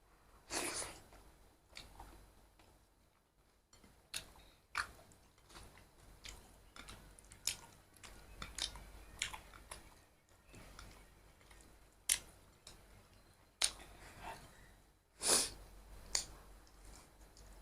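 A person chewing a mouthful of rice with kinema and pork, close to the microphone: irregular wet clicks and lip smacks, a few of them louder.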